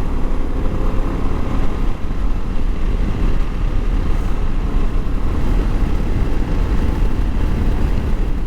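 Moto Guzzi V85 motorcycle, an air-cooled transverse V-twin, ridden at road speed: a steady engine drone mixed with wind rush.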